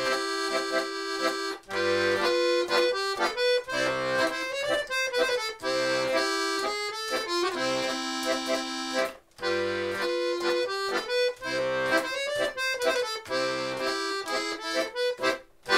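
Piano accordion playing a folk melody over left-hand bass notes, with a short break in the sound about nine seconds in and a loud chord right at the end.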